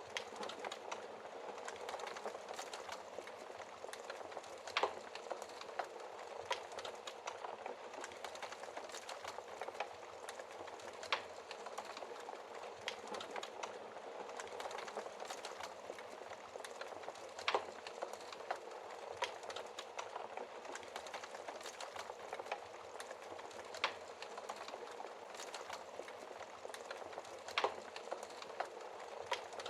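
Wood fire burning in a fireplace, crackling steadily, with sharp louder pops of the burning wood every few seconds.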